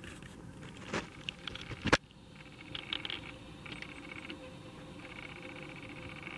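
Camera handling noise: a few sharp clicks and knocks as the camera is moved, the loudest just before two seconds in, followed by faint intermittent higher-pitched sounds.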